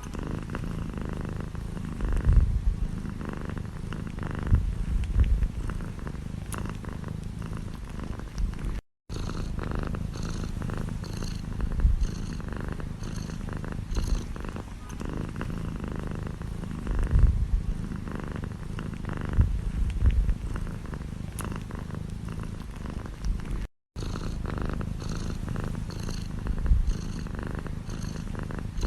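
Domestic cat purring steadily, the low rumble swelling louder every two to three seconds with its breathing. The sound cuts out briefly twice.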